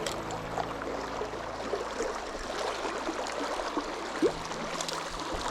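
Creek water flowing: a steady, even rush.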